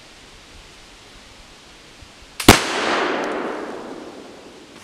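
Pedersoli flintlock pistol firing once, a .45 round ball over a 30-grain FFF black powder charge. A smaller crack from the lock and priming pan comes a split second before the loud report, which echoes through the woods and dies away over about two seconds.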